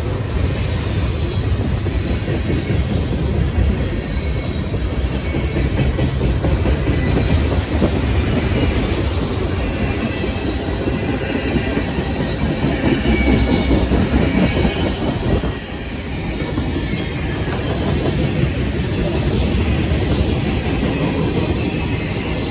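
Railroad cars rolling past at close range: a steady, loud rumble of steel wheels on the rails, with a faint high wheel squeal over it.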